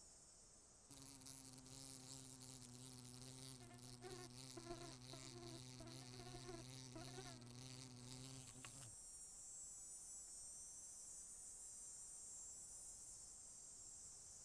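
A flying insect buzzing with a steady low hum for about eight seconds, wavering in pitch midway, then stopping abruptly. A faint, steady, high-pitched insect chorus runs underneath and carries on after the buzz stops.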